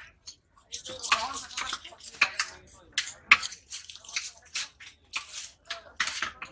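A large knife scraping the scales off a rohu fish against a wooden block, in quick repeated rasping strokes.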